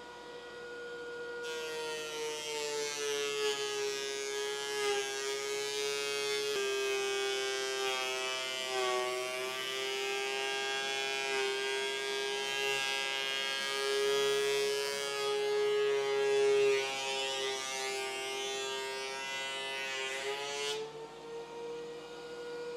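DeWalt benchtop thickness planer running with a steady motor whine. About a second and a half in, the whine drops slightly in pitch and a dense hiss of cutting starts as a rough walnut board feeds through. Near the end the hiss stops and the whine rises back as the board leaves the cutterhead.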